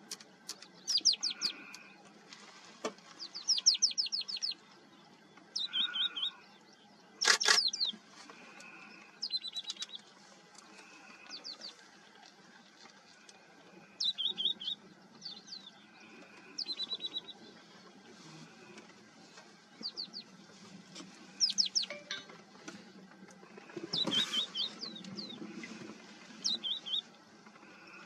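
Bird calling in repeated short bursts of quick, high, sliding notes, a group every second or two. Two louder, sharper sounds cut in, one about a quarter of the way in and one near the end.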